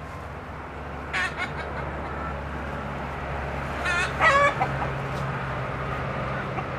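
Chickens clucking, with a short call about a second in and a louder pair of wavering calls around four seconds in, over a steady low hum.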